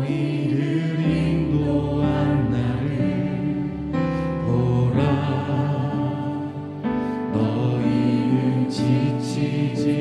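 Korean contemporary worship song: a male lead vocalist sings with a live band accompaniment.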